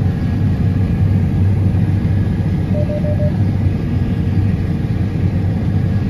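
Combine harvester running in the field, heard from inside its cab as a loud, steady rumble. A faint brief beeping comes about three seconds in.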